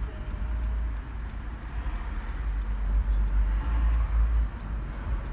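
Car cabin noise while driving: a steady low rumble of engine and tyres on the road, with faint regular ticking.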